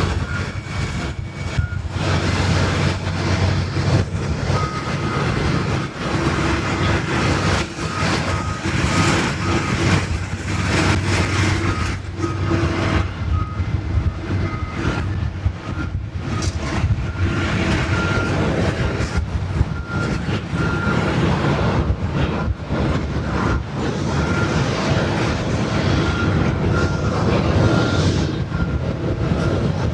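Steady jet engine noise across an airport apron, with a short high beep repeating about once a second through most of it.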